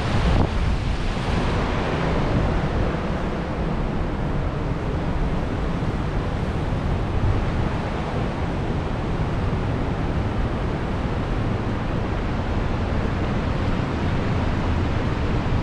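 Wind buffeting the microphone with a steady rushing of water spilling down the concrete face of a dam; the rush is brightest in the first couple of seconds and then eases, leaving mostly the low wind rumble.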